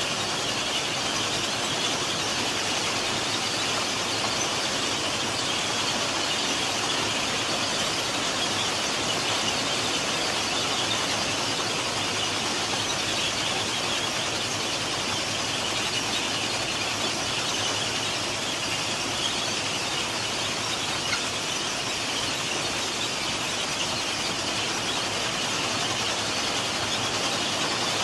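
Plasser & Theurer PM 1000 URM track formation rehabilitation machine working, its conveyors and machinery giving a steady, even din that is mostly high-pitched, with no breaks.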